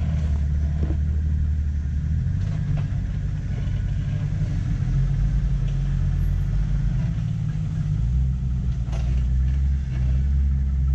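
Jeep engine running at low revs as it crawls over a rock obstacle, its note shifting up and down a few times, with a few short knocks.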